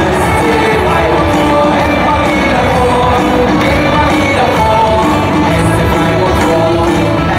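A stadium crowd of football fans singing a chant in unison, a mass of voices carrying a tune over the general noise of the stand.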